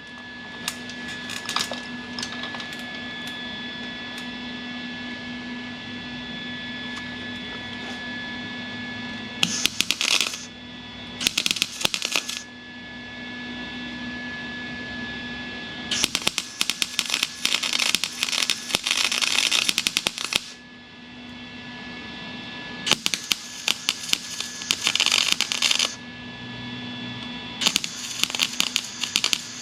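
Wire-feed (MIG) welder crackling in five bursts, from about a second to four and a half seconds long, while welding a steel patch into sheet-metal bulkhead. A steady hum runs between the bursts.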